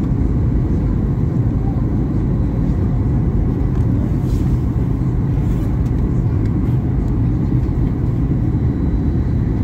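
Steady, deep cabin noise of a Ryanair Boeing 737 airliner on approach to land: engine and airflow noise heard from inside the passenger cabin.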